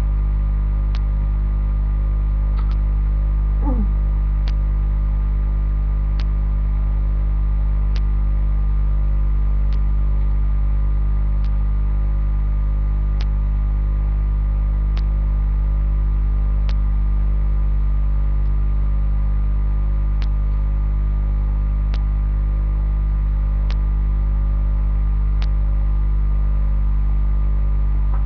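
Loud, steady electrical mains hum. A faint click comes about every second and three quarters, and a brief falling squeak sounds a few seconds in.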